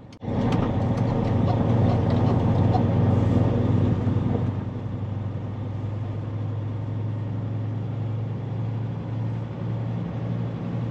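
Heavy dump truck's diesel engine pulling a combined load of about 112,000 lb, running steadily. It comes in abruptly, is louder for the first few seconds, then eases to a slightly lower steady drone.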